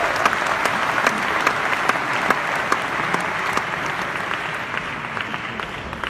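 Audience applauding, a dense patter of many hands clapping that gradually dies away over the last couple of seconds.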